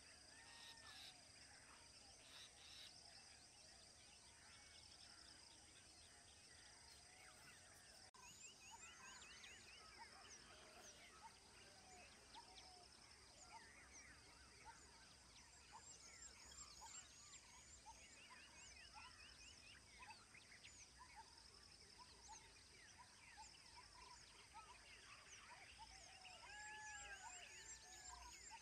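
Faint birdsong from several birds: short chirps, arching whistles and quick trills, over a steady high-pitched insect buzz.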